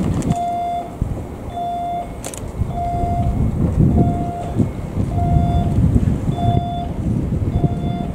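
A 115-series electric train rumbling as it moves slowly along depot track, while an electronic warning tone beeps about once a second.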